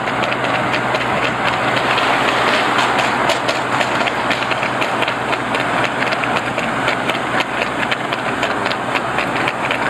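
A trotting horse's shod hooves clicking on tarmac in a steady rhythm, over the continuous engine and road noise of the vehicle it is filmed from.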